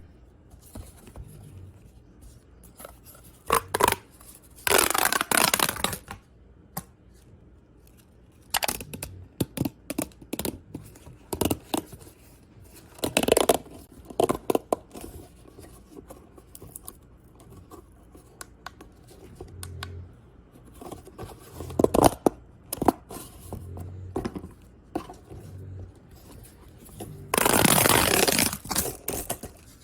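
Plastic pop tubes, corrugated fidget tubes, being stretched and squeezed, giving irregular crackling clicks and pops. Several longer rasping stretches of a second or two are mixed in, the longest near the end.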